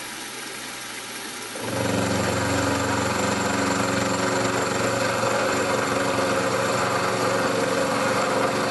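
Milling machine spindle and power feed running with a steady hum, then about one and a half seconds in the 10 mm carbide end mill bites into the metal block and a louder, steady cutting drone takes over as it takes a 1 mm-deep milling pass.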